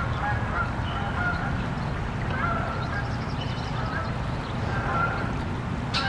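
Canada geese giving repeated short honking calls over the steady low rush of fast-moving river water.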